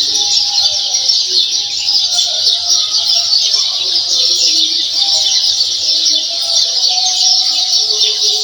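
Steady, dense high chirping of many birds, with faint voices lower down.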